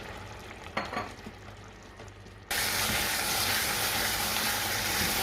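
Curry sauce of onions and crushed tomatoes cooking in a pan: a few light knocks of a utensil at first, then about halfway through a steady frying sizzle starts suddenly and stays loud.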